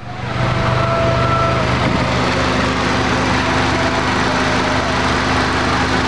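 Toyota Celica's four-cylinder engine idling steadily with its catless exhaust, after a misfire repair; it is running smoother and has thrown no codes yet.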